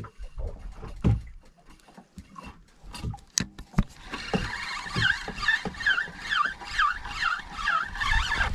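A few handling clicks and knocks. From about four seconds in, a Penn 4000 spinning reel is cranked steadily, its gears whirring with a rise and fall in pitch on each turn of the handle, about twice a second.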